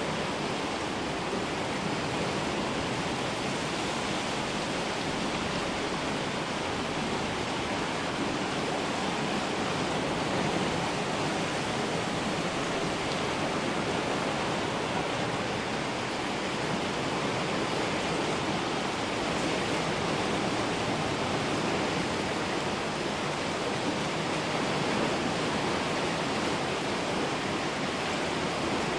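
Creek in flood, its water rushing steadily and evenly.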